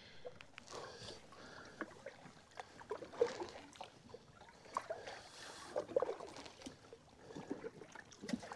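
Kayak being paddled through very shallow, muddy creek water: irregular paddle splashes and knocks.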